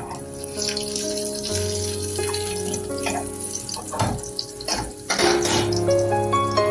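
Background music with steady notes, over several short surges of splashing water, as from a running tap.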